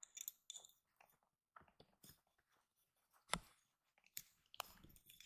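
Faint, scattered taps and clicks of a kitten playing with small plastic toy traffic cones on carpet, with one sharper knock about three seconds in.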